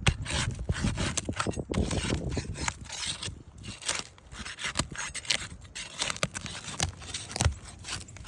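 A tool scraping under 3-tab asphalt roof shingles and prying at the roofing nails to work them loose: repeated scrapes and sharp clicks, with a loud knock right at the start and another about seven and a half seconds in.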